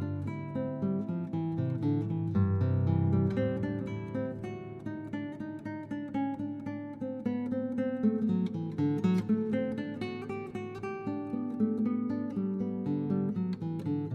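Background music: acoustic guitar plucking and strumming, with notes changing every fraction of a second.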